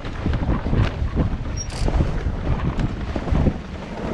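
Wind buffeting the microphone on a sailboat under way, a gusty low rumble with short sharp knocks and splashes mixed in.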